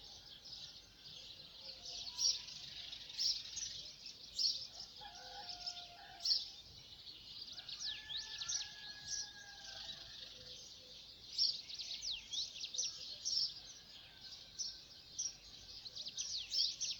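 Many small birds chirping and twittering at once in a dense dawn chorus of quick, high notes, with a few lower, longer held calls about a third of the way through.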